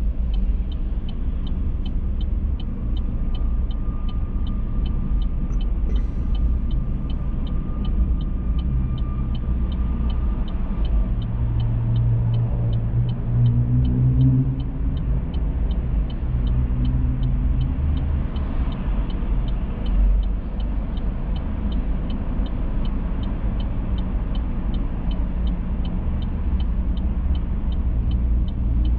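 A car driving along, with a steady low road and engine rumble. A faint regular tick sounds about twice a second throughout.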